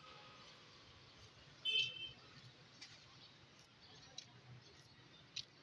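Faint railway platform background with a few light clicks, and a short high-pitched two-note tone about a second and a half in.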